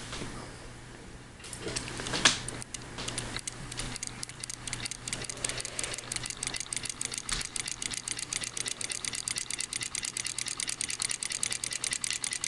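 Model electromagnetic engine starting up and running: a sharp click about two seconds in, then a mechanical clatter of clicks that quickly speeds up and settles into a fast, even rhythm of roughly eight to ten clicks a second as the solenoid plungers work the rocker beam and brass flywheel.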